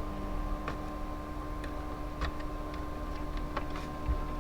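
A few light, sparse clicks and taps of laptop parts being handled during reassembly, over a steady faint hum.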